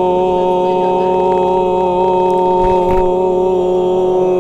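Throat singing: a man's voice holds one steady low drone with strong ringing overtones, its pitch unchanging throughout.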